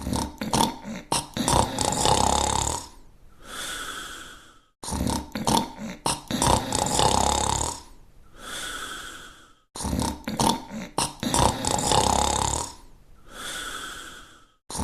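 Cartoon dog snoring, repeated three times about five seconds apart. Each snore is a long, loud, rattling in-breath followed by a quieter, whistling out-breath that cuts off suddenly, like a looped sound effect.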